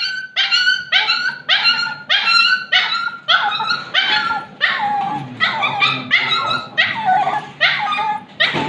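A dog crying out in pain at a vaccination, with a rapid string of short, high-pitched yelps, about two a second, that stop near the end.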